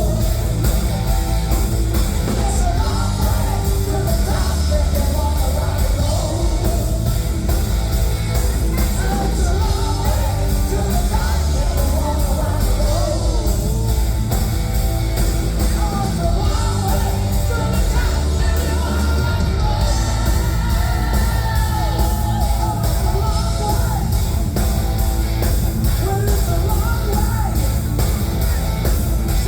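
Loud rock music with a singer, heavy and continuous.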